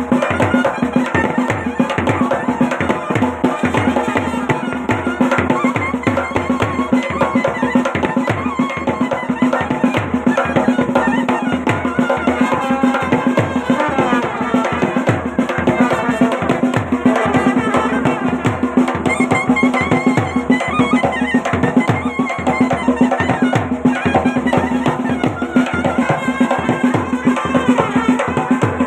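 Himachali band baja playing folk dance music: drums beating a fast, steady rhythm under a wavering wind melody and a held drone note.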